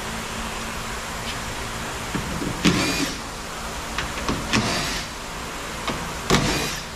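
Small cordless power driver with a 10 mm socket whirring in three short bursts, its pitch rising and falling, as it backs out the three screws holding the door handle, with a few light clicks between runs.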